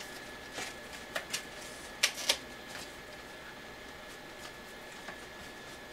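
Small cardboard retail box being handled while someone works out how to open it: scattered light clicks and taps, the loudest a pair about two seconds in, then it goes quiet.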